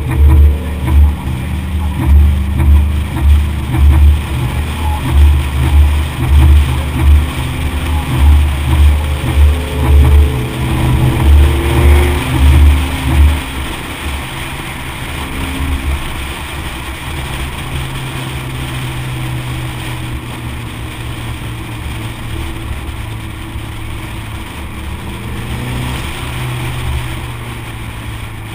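Mazdaspeed3's turbocharged 2.3-litre four-cylinder cruising on the road, heard from a camera mounted on the outside of the car, with road and wind noise. For the first half, loud, irregular low buffeting pulses on the microphone. About halfway through these stop, leaving a quieter, steady drone.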